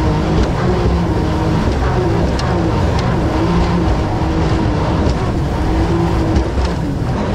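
Mini jet boat engine running hard, its pitch rising and falling a little as the throttle changes, with hiss of rushing water and occasional sharp slaps of waves against the hull.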